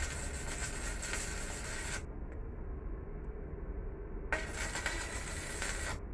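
Welding arc on scrap steel crackling and hissing in two bursts of about two to three seconds each. Each burst starts and stops abruptly, as the torch is triggered on and off.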